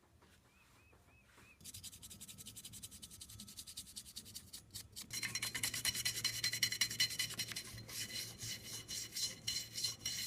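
Fast, even back-and-forth rubbing strokes against a hard surface, as in hand sanding or scrubbing. It starts about a second and a half in and grows louder about five seconds in, with a high ringing squeal over the scratching.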